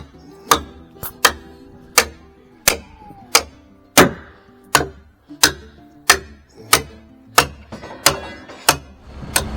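Steady, regular hammer blows, about one every two-thirds of a second, each a sharp crack with a short ring, driving the final pins into the joints of a timber frame.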